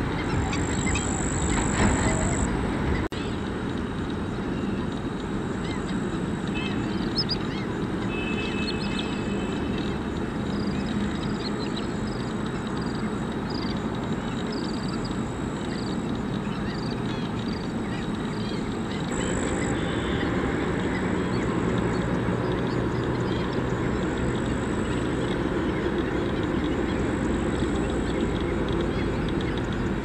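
Wetland ambience: a steady background rush with scattered short, high bird chirps and a few waterfowl calls, quacking and honking.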